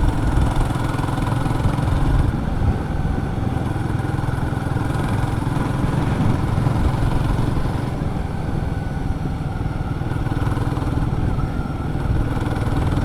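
Royal Enfield Guerrilla 450's single-cylinder engine running steadily under the rider, a low, even drone with no revving.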